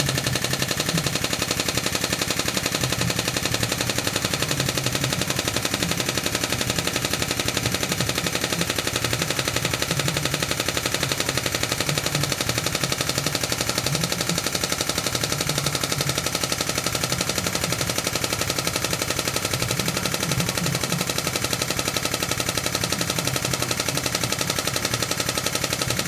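Hydraulic pump powering a hollow ram cylinder, running with a rapid, even rattling pulse as it pushes on a rusted pivot pin to press it out.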